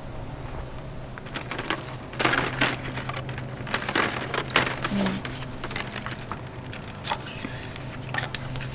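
Packaged tools being handled on a store display: plastic packaging rustling and clicking in several short bursts, over a steady low hum.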